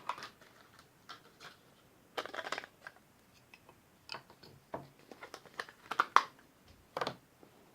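Scattered small clicks and short rustles of hands handling new laptop RAM modules, with a few louder handling noises around two seconds in and again near the end.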